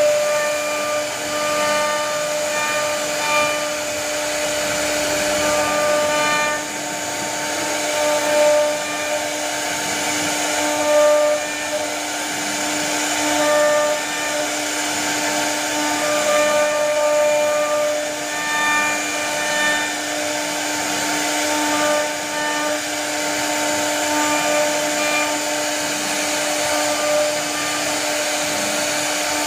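CNC router spindle running steadily while its bit carves curved grooves into a wooden door-frame board. A constant whine runs underneath, with higher whining tones that come and go every second or two as the cut goes on.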